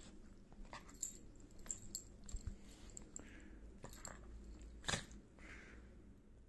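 Small dog play-biting and mouthing a hand: faint scattered clicks of teeth and soft breaths, with one sharper snap about five seconds in.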